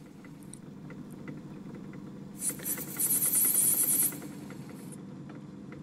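Myford ML7 metal lathe running with a steady hum. From about two seconds in, a louder high-pitched hiss lasts about two seconds as a high-speed steel trepanning cutter takes a cut in the spinning brass flywheel.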